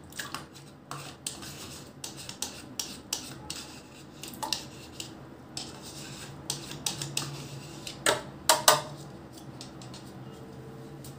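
Light clinks and knocks of a utensil and lid against a plastic food-processor bowl of milk: a scatter of small taps, with a few louder knocks about eight seconds in.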